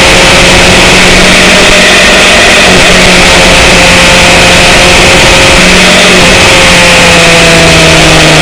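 Motorcycle engine running at a steady road speed under a loud, even rush of wind and road noise. The engine note sags slightly lower in the last couple of seconds as the bike eases off.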